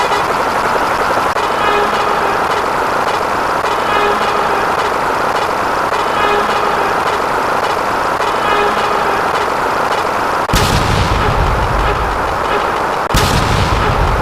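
Layered sound effects: a steady, noisy rumble with a faint repeating pattern, then two sudden loud blasts, about ten seconds in and again some two and a half seconds later, each trailing off into a deep rumble.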